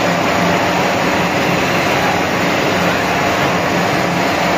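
Snack-food extrusion production line machinery running: a steady wash of loud machine noise with a low hum that throbs evenly underneath.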